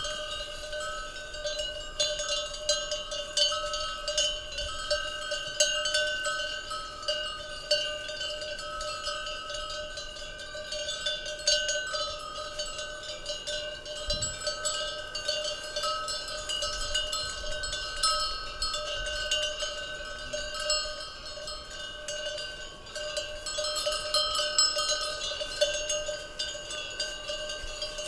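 Many cowbells worn by grazing cattle, clanking continuously and irregularly as the animals move. The bells' steady ringing tones overlap into a dense jangle.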